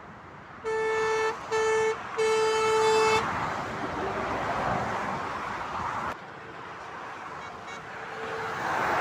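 Semi-trailer truck's horn sounding three times, one steady note: two short blasts and a longer third. Then motorway traffic passing below, swelling and fading.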